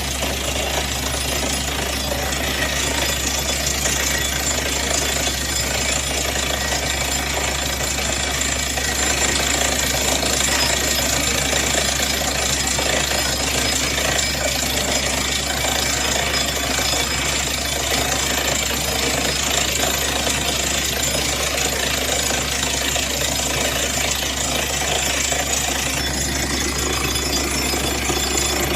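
Borewell drilling rig running: a steady, loud mix of engine hum and drilling noise that does not let up.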